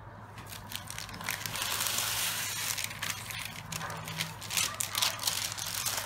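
Baking parchment paper rustling and crinkling as it is slid out from under a baguette, a run of irregular crackles lasting several seconds.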